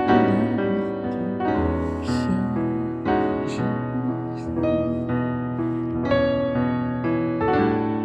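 Slow instrumental music led by piano chords over held bass notes, the closing bars of a song after the singing has ended.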